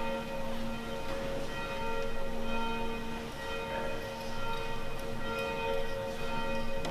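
Church bells ringing, several bells sounding together in long overlapping tones with fresh strikes now and then.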